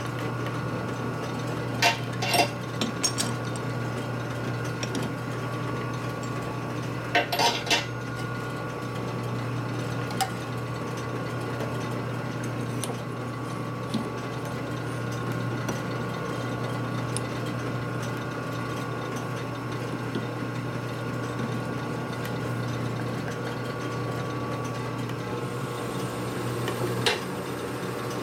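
Metal parts clinking against a steel four-jaw lathe chuck as a holder is fitted into it, a few clinks about two seconds in and a quick cluster around seven seconds, over a steady shop hum. Near the end the lathe is switched on: the hum changes and a hiss starts as the chuck spins up.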